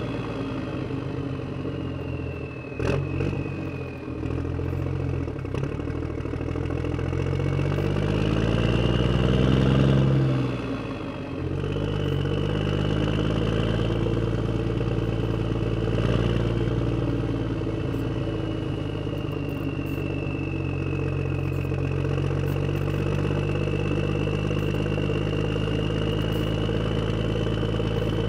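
Radio-controlled Bruder Claas Axion 950 toy tractor driving: a diesel tractor engine sound that rises and falls in pitch, over the thin high whine of its electric drive motor.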